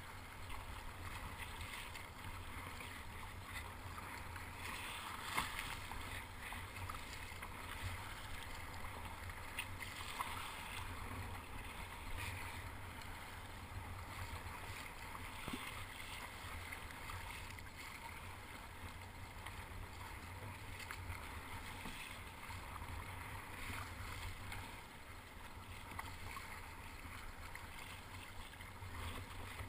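Kayak paddle strokes splashing and water washing against a sit-on-top kayak on choppy sea, swelling and fading with each stroke, over a low steady rumble, with a few light knocks.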